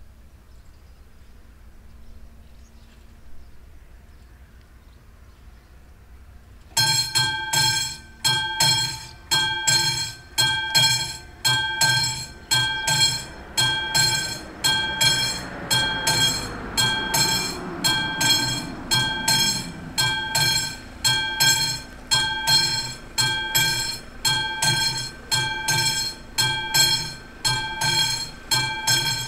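Classic electromechanical level-crossing bell starts ringing about seven seconds in, sounding steady, evenly repeated metallic strokes that warn of an approaching train as the crossing's AŽD 71 red lights begin flashing.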